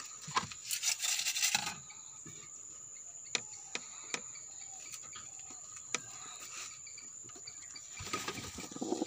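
Handling noise in wooden pigeon nest boxes: a short rustle about a second in, a few sharp taps on wood scattered through, and more rustling near the end as a hand reaches into a box, over a steady high-pitched tone.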